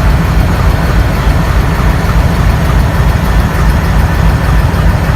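Twin WDG3A diesel locomotives, ALCO 251 engines, chugging hard while hauling a loaded train: a loud, uneven low rumble with a hissing haze over it.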